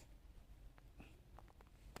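Near silence: quiet room tone with a few faint small clicks and ticks.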